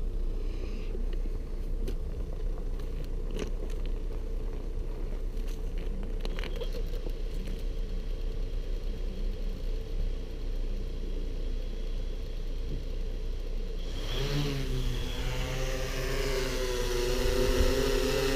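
A low steady rumble with a few light clicks, then, about three-quarters of the way through, the Yuneec Q500+ Typhoon quadcopter's motors start. Its propellers spin up into a rising, growing hum of several pitches as it lifts off.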